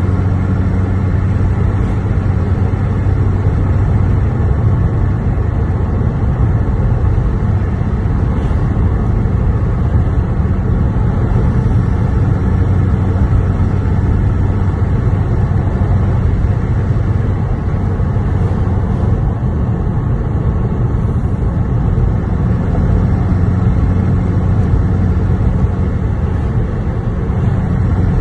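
Lexus GS 300's 2JZ-GE straight-six running under way, a steady low engine drone over road noise. The engine note eases off in the middle and comes back strongly near the end.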